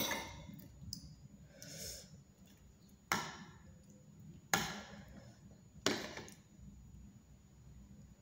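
Metal spoon clinking against a plate four times as food is scooped up, each clink ringing briefly.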